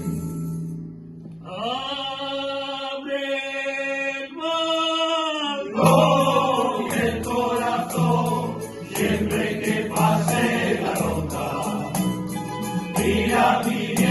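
Rondalla music with a choir of voices: the voices hold long, steady notes, then about six seconds in the ensemble breaks into a rhythmic passage of strummed and plucked strings over a regular bass beat, with jingling percussion.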